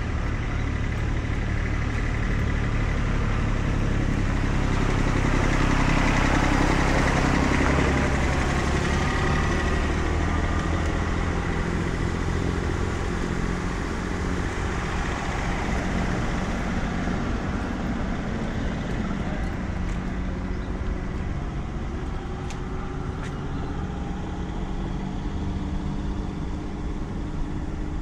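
Road traffic passing in a steady rumble, with one vehicle swelling loudest about six to nine seconds in and another, fainter, a little later.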